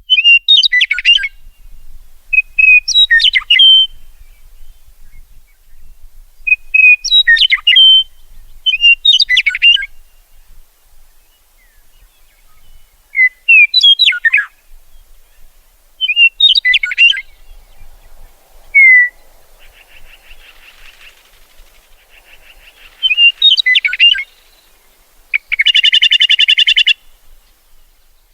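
Meadowlark singing short, loud phrases of clear, sweeping whistled notes, repeated every two to three seconds. Past the middle come buzzy, rattling chatter calls, the loudest near the end.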